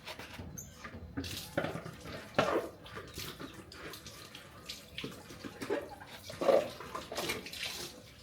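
Water splashing and running in uneven surges, like water being poured or sloshed in a container.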